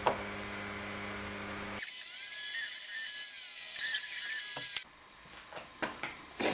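Makita router spindle on a CNC machine running at high speed while cutting into an end-grain board: a loud high whine with hiss. It starts abruptly about two seconds in and cuts off about three seconds later. Before it there is a low steady hum, and near the end a few light knocks.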